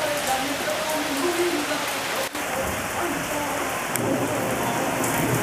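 Rain falling steadily, an even hiss, which cuts out for an instant a little over two seconds in.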